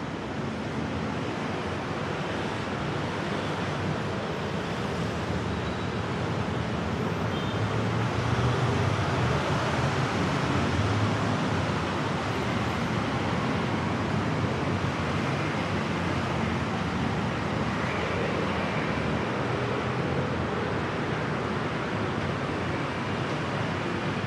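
Steady city road traffic noise, a continuous even rumble and hiss that swells a little around the middle.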